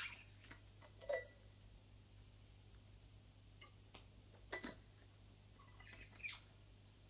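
Faint handling sounds of a bottle being picked up and drunk from: a soft click at the start, a short squeak about a second in, then a few light rustles and taps.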